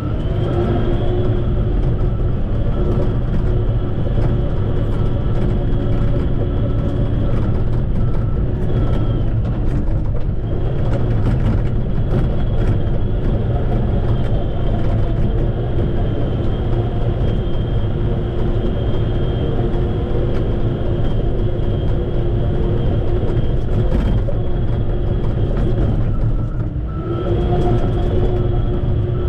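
Shantui bulldozer's diesel engine running steadily under load with a high whine, easing briefly twice.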